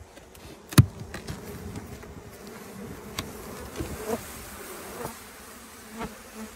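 A mass of honey bees humming from an open hive, with one sharp click about a second in and a few fainter short knocks later.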